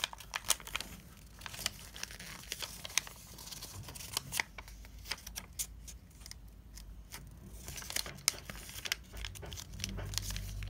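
A sheet of origami paper being folded and creased by hand into a square base: irregular crisp crinkles, rustles and sharp paper clicks as the folds are pressed flat.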